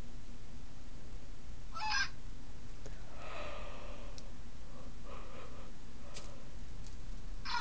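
Zhu Zhu Pets robotic toy hamster giving short electronic squeaks and chirps from its speaker as it runs in its plastic track: a brief squeak about two seconds in, a longer warbling chirp soon after, and another sharp squeak at the end.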